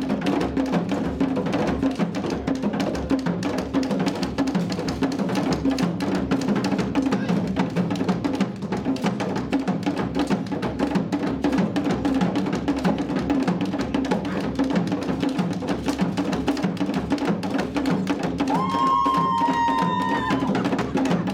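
Live ensemble of tall hand drums playing a fast, dense, steady rhythm. Near the end, a single high held call of about two seconds sounds over the drums.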